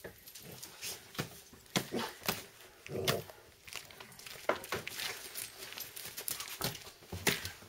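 Footsteps crunching in snow: an irregular run of sharp crunches, a few a second.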